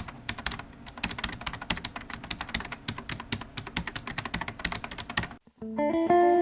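Rapid, irregular keyboard typing clicks that stop a little over five seconds in. Sustained guitar notes come in near the end.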